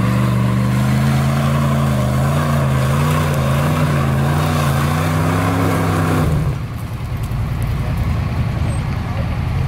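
Jeep Grand Cherokee ZJ's 5.2-litre V8 pulling under load up a steep rocky climb, running at steady revs that rise and fall slightly. About six seconds in, the sound changes abruptly to a lower, rougher engine rumble.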